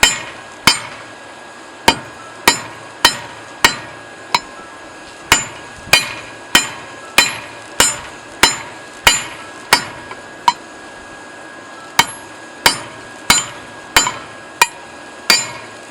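Hand-hammer forging of a hot railroad-clip steel bar: a steady run of about twenty sharp, ringing metal-on-metal blows, roughly one every 0.6 s, broken by a few short pauses.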